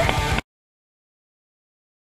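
Background music cuts off abruptly less than half a second in, leaving complete digital silence.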